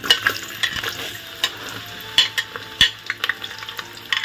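Chopped carrots hitting hot oil in a metal pot and frying: a sizzle that starts suddenly, with sharp crackling pops and clicks throughout.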